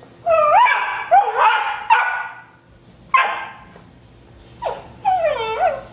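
Rhodesian Ridgeback puppy yipping and whining in several high, rising-and-falling bursts, with a sharper yip about three seconds in: begging for another dog's rawhide.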